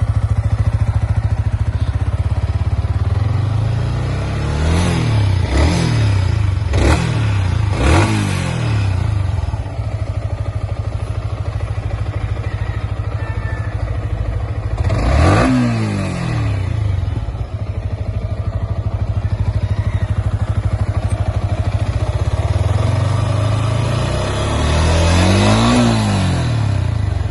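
Yamaha R15 V3's 155 cc single-cylinder engine on its stock exhaust, idling and revved: four quick throttle blips a few seconds in, one sharp rev around the middle, and a longer, slower rev near the end, each falling back to idle.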